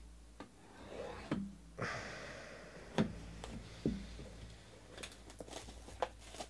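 Plastic shrink wrap on a cardboard trading card box being slit with a blade and pulled away, with a rustling hiss about two seconds in. Light taps and clicks follow as the box is handled and its lid opened.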